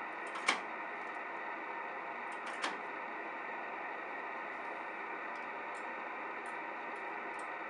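Steady hiss from an R-390A tube communications receiver tuned to its 500 kHz band, with no station coming through, and two sharp clicks from its front-panel controls in the first three seconds. The band is dead, like every band below 8 MHz on this set, a fault traced to no output from the first crystal oscillator.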